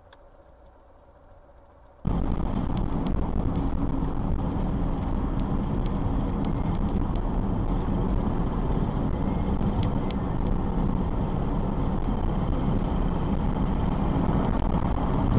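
Steady rumble of a car driving at highway speed, tyre and engine noise heard from inside the cabin. It starts abruptly about two seconds in, after a quiet stretch.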